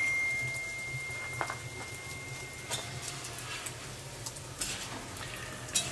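A metal pan or utensil knocked once, ringing with a single clear high tone that fades over about three seconds. Small kitchen clicks and knocks follow over a steady low hum.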